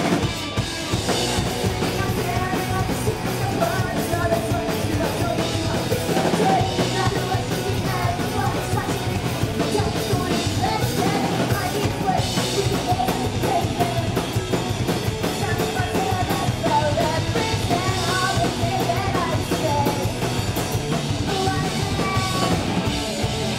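Punk rock band playing live: distorted electric guitars, bass guitar and a drum kit, with a woman singing over them.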